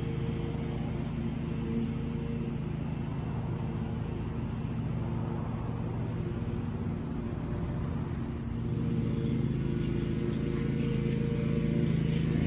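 Exmark Turf Tracer 36 commercial walk-behind mower running steadily while it cuts grass. It grows fainter as it moves off, then louder again after about eight seconds as it comes back.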